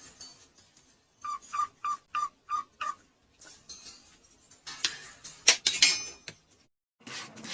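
A pet bird calling in a quick run of six short, sharp, repeated notes, then a few sharp clicks and clinks.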